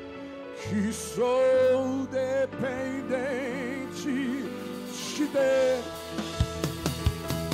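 Live worship song: a solo voice singing long held notes with vibrato over sustained accompaniment chords and bass.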